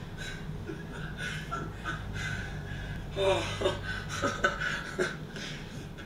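A man laughing and breathing hard, the laughter coming in short bursts about three seconds in, over a low steady hum.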